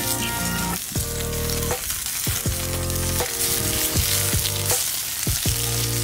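Marbled beef slices sizzling hard in a very hot iron frying pan over a wood fire, a steady frying hiss. Background music with a stepping bass line plays along.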